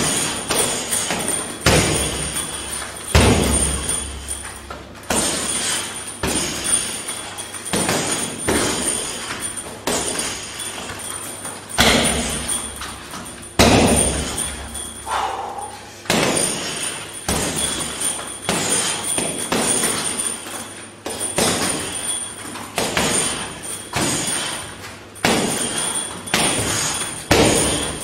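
Punches and kicks thudding into a hanging heavy punching bag, one sharp hit about every second in an uneven rhythm.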